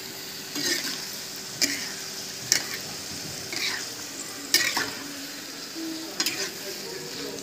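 Metal spoon scraping and knocking against a wok about once a second while chopped napa cabbage and other vegetables are stir-fried, over a steady frying sizzle.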